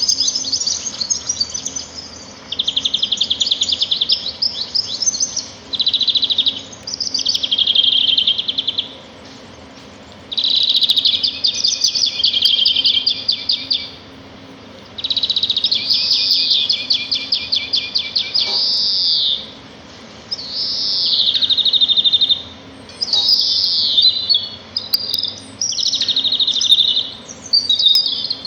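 Small songbird singing long phrases of rapid, high trills, each lasting a few seconds, with short pauses between them; the phrases grow shorter and choppier near the end.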